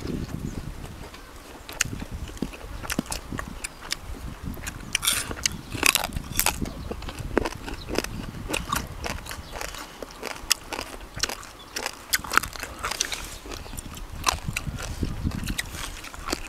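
Close-up chewing and crunching of food: many irregular crisp clicks and crunches with no steady rhythm.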